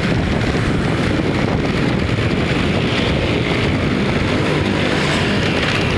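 Steady road-traffic noise with low wind rumble on the microphone.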